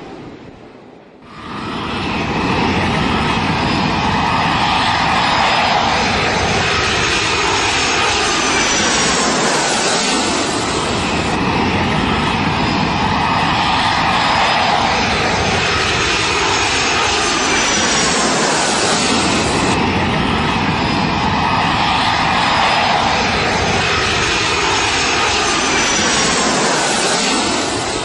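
Jet airliner engines running loud and steady, starting about a second in, swelling and easing in waves every eight or nine seconds.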